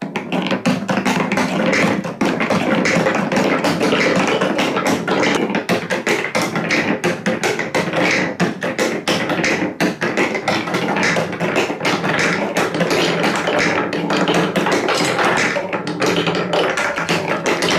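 Balls rolling and clattering along plastic Trix Track wave-slope track pieces, a dense, unbroken run of rapid taps and knocks.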